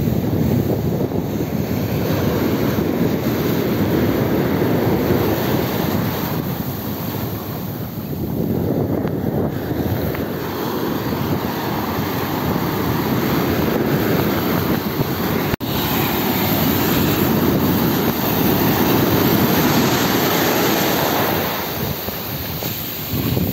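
Ocean surf breaking and washing up over sand, swelling and ebbing as each wave comes in, with wind buffeting the microphone. The sound cuts out for an instant about two-thirds of the way through.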